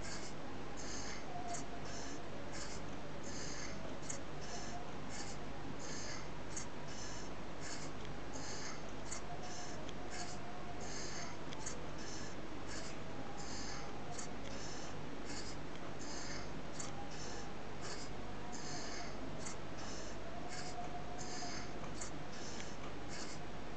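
Small brass model V-twin steam engine running slowly, its exhaust coming as short soft hissing puffs about two or three times a second in a steady rhythm.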